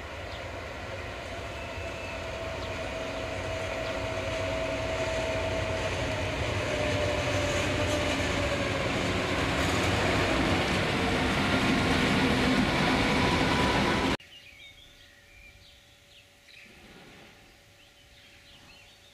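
Class 232 diesel locomotive hauling a train of log wagons past, its engine growing steadily louder as it approaches, with a whine that falls slightly in pitch. About fourteen seconds in, the sound cuts off abruptly to quiet outdoor ambience with faint bird chirps.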